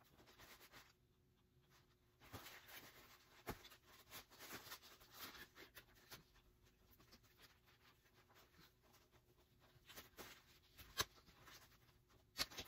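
Faint rustling of a Chicco stroller's canopy fabric being handled and fitted onto the frame, with a few sharp clicks, the loudest near the end.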